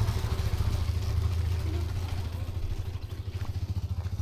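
A small engine running nearby with a rapid low putter, slowly fading away.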